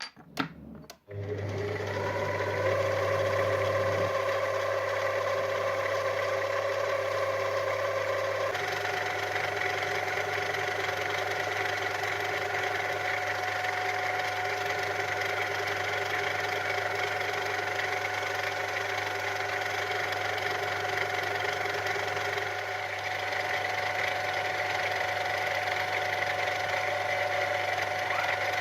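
Lathe switched on with a couple of clicks and then running steadily with a low hum and a whine, machining the inside of an aluminium part. The whine changes pitch about eight seconds in.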